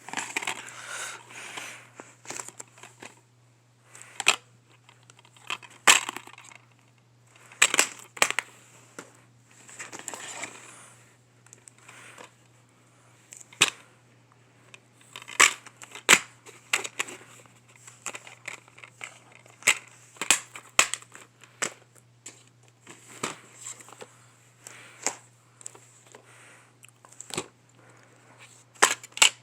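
DVD packaging being handled and opened: plastic wrapping crinkling and tearing, with many sharp clicks and snaps at irregular intervals.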